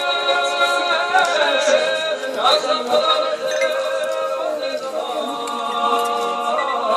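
A choir singing unaccompanied, holding long notes in several parts that move together to new chords now and then.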